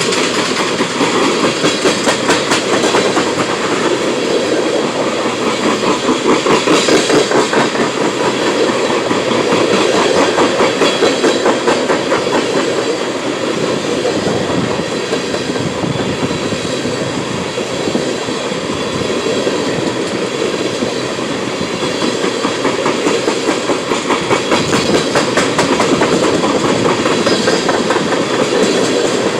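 Freight train of tank cars rolling past, the steel wheels clacking rapidly and rhythmically over the rail joints.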